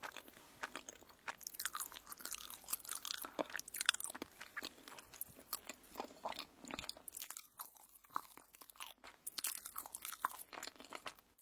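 Close-miked chewing and crunching of crisp toast: irregular crunchy bites and wet mouth clicks.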